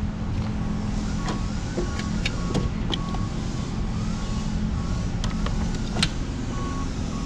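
1996 Toyota Corolla's 1.8 L four-cylinder engine idling with a hard misfire on cylinder 1, its spark escaping outside the cylinder. A short high beep repeats about twice a second over the engine, with a few sharp clicks.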